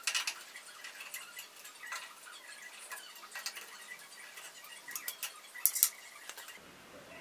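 Small metallic clicks and scrapes of a hex key working the screws of a table saw's zero-clearance throat insert and of the insert being pried and lifted out of the cast table. There is a sharp click right at the start and a cluster of louder clicks a little before six seconds in.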